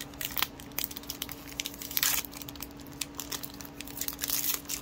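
Foil Yu-Gi-Oh! booster pack wrapper being crinkled and torn open by hand: a run of sharp crackles and crinkles, loudest about two seconds in and again near the end.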